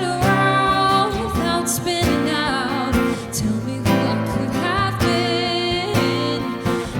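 Live acoustic country-style music: plucked and strummed acoustic guitar under a wavering, vibrato-laden melody line.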